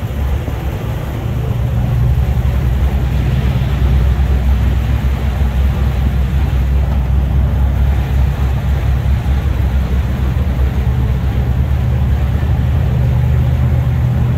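Jeep engine running as it drives along, heard from inside the vehicle as a steady low rumble with road and wind noise. It grows louder over the first two seconds, then stays steady.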